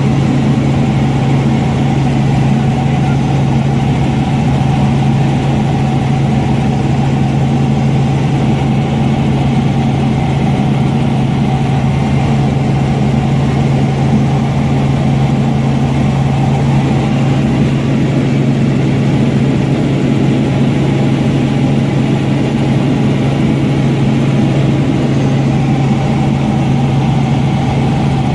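Robinson R44 Raven I helicopter, its six-cylinder Lycoming piston engine and rotors running with a loud, steady drone that holds a constant pitch throughout.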